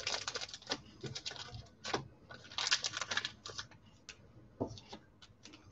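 Trading cards being handled and flipped through: bursts of rapid light clicks and rustles, thinning out to a few scattered single clicks in the second half.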